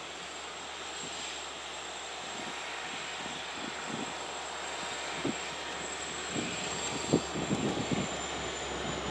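Steady engine drone with a faint high whine over it, joined in the second half by gusts of wind buffeting the microphone.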